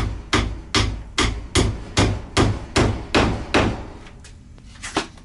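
Hammer nailing a wooden slat: about ten steady blows, roughly two and a half a second, that stop about three and a half seconds in, then one lighter knock near the end.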